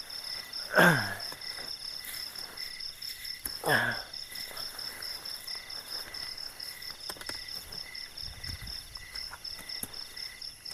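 Crickets chirping steadily, an even high pulse several times a second. Twice, about a second in and again near four seconds, a short sound slides steeply down in pitch over the chirping.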